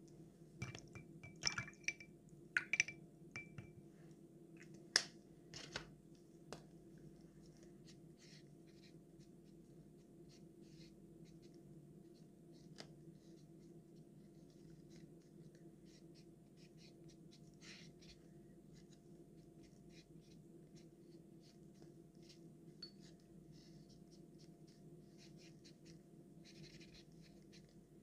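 Faint handling of art materials: sharp clicks and a few short, clear ringing clinks in the first several seconds, then sparse light scratching and ticking of a pen on paper over a low steady room hum.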